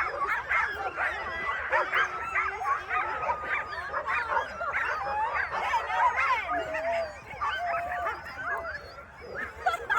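A team of sled dogs barking, yipping and whining all at once, many overlapping calls, thinning a little near the end.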